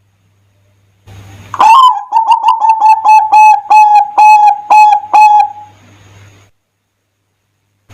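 Zebra dove (perkutut) singing: about a second in, a rising note opens a rapid run of about a dozen short, clipped cooing notes lasting some four seconds.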